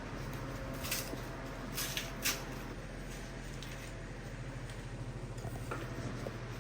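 A few short sharp clicks or knocks in the first two and a half seconds, over a steady low hum.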